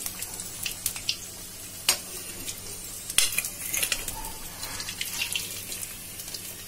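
Soya chaap sticks sizzling lightly in hot mustard oil in a steel kadhai while a metal ladle lifts them out, clinking against the pan and the steel plate several times, most sharply about two and three seconds in.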